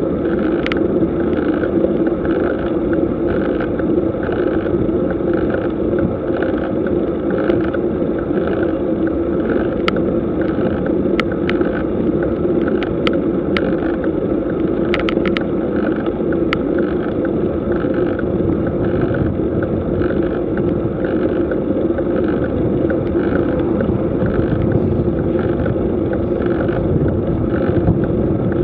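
Steady, muffled road and wind noise picked up by a camera riding on a bicycle climbing a paved road, with a faint regular pulse and a few sharp ticks in the middle.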